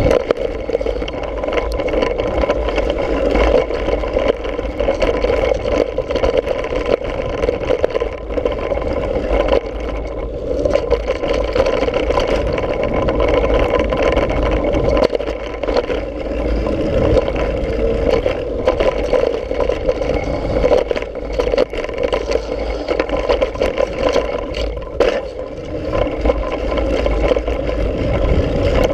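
Mountain bike running fast down a dirt trail: tyres rolling over dirt and the bike rattling over bumps, with a steady rumble of wind on the camera's microphone.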